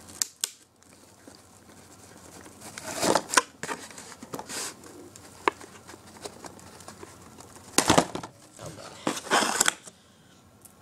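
Plastic and cardboard toy packaging crinkling and tearing in irregular short bursts, with a few sharp clicks, as the remote is cut and pulled free of it; the loudest burst comes about eight seconds in.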